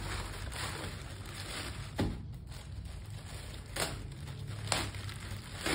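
Plastic courier mailer bag being cut open with a knife and handled, rustling, with a few short sharp crackles.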